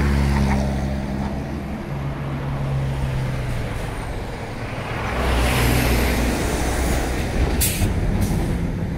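Heavy road vehicles, trucks or buses, running close by with a low, steady engine drone and passing road noise that swells about halfway through. Two short hisses near the end.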